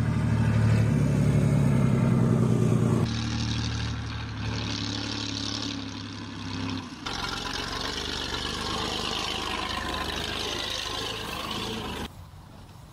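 Heavy engine of a BM-21 Grad rocket launcher's Ural truck running as it drives, a steady low drone that changes abruptly three times and turns much quieter near the end.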